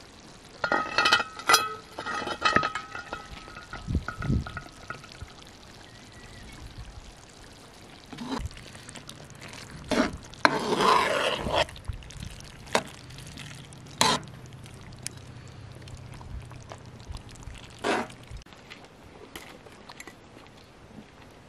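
Metal lid and ladle clinking and ringing against a cast-iron cooking pot in the first few seconds, then the ladle stirring and scraping through a thick meat stew, with a few sharp knocks later on.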